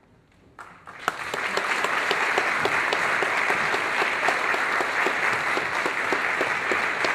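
A hall audience applauding: a few first claps, then full, steady applause from about a second in.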